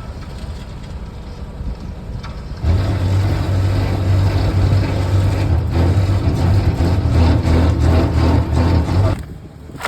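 Excavator's diesel engine running at a low idle, then revving up about two and a half seconds in and running loud and steady under hydraulic load for about six seconds before dropping back near the end.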